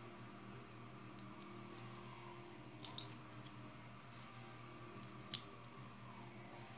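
Light clicks and taps of small hard-plastic Playmobil figure parts being handled and pressed together, over a faint steady hum. A couple of clicks come about three seconds in, and a sharper single click a little past five seconds.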